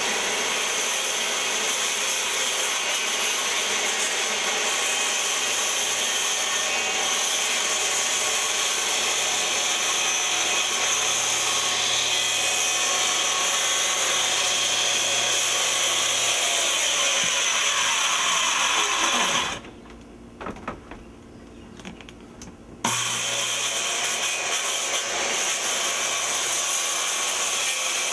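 Circular saw running and cutting through vinyl siding along the edge of a window opening. About two-thirds of the way in it winds down with a falling pitch, and after a short lull of a few seconds it starts up again at full speed.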